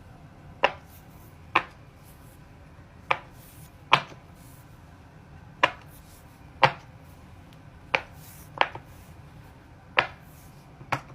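Bubbles on a silicone pop-it fidget toy being pressed one at a time by finger, each giving a short sharp pop; about ten pops at an uneven pace, as two players take turns.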